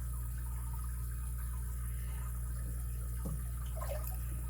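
Steady low electrical hum with a faint even hiss, with two faint soft sounds near the end.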